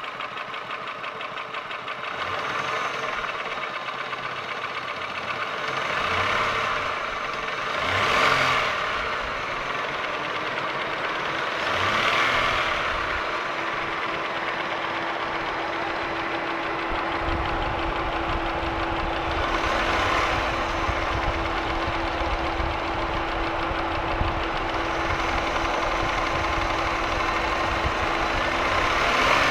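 Holden Commodore VY's 3.8 L Buick V6 running with a repetitive ticking knock, its revs rising and falling a few times. The owner cannot tell whether the noise is valve-train tick (lifters, pushrods, rockers) or a bottom-end knock (connecting rod, bearing).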